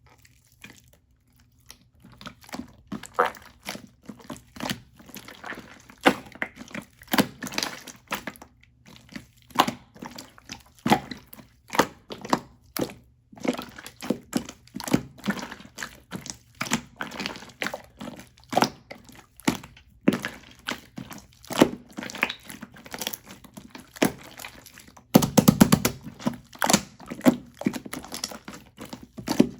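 Crisp croffle being crunched, irregular sharp crackles and crunches one after another, with a louder, denser run of crunching near the end.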